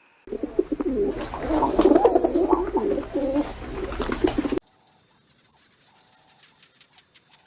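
Pigeons cooing in a loud, wavering, overlapping stretch that cuts off abruptly a little over halfway through, leaving only a faint hiss with light clicking.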